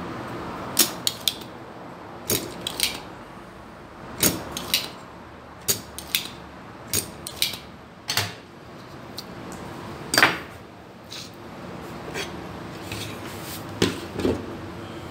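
Hand tools and small hard objects being picked up and set down on a workbench: a string of irregular sharp clicks and clacks, about twenty in all. Near the end comes a couple of knocks as a circuit board is lifted and turned over.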